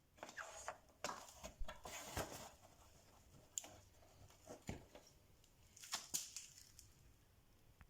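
Scattered light clicks, taps and rustling, with several sharper knocks through the middle: small parts and tools being handled during engine assembly.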